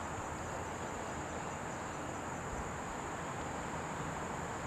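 A steady, high-pitched chorus of insects, crickets or similar, over an even background hiss.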